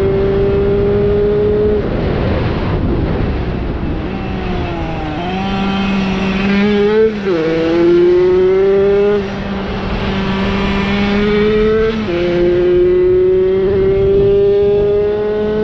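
Single-cylinder two-stroke Tomos moped engine running hard at high revs. Its pitch climbs slowly and drops sharply several times, as the rider changes gear or backs off the throttle.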